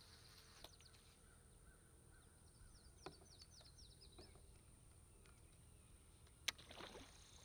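Near silence: faint outdoor quiet with a string of faint, high birds' chirps in the middle and one sharp click near the end.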